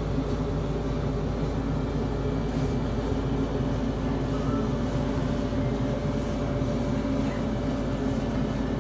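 Steady drone of a ventilation fan with a low hum, holding an even level.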